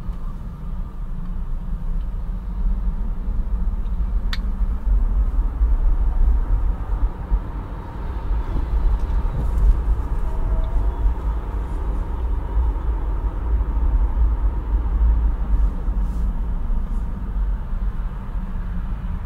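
Car driving on city streets: a steady low road and engine rumble that swells and eases slightly, with a single sharp click about four seconds in.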